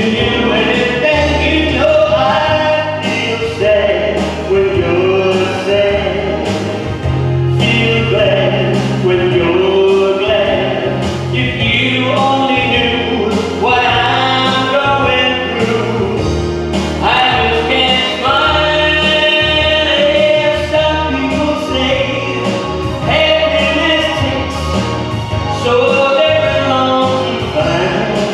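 A man singing a ballad live into a handheld microphone, amplified through a PA speaker, over full backing music with a steady bass line.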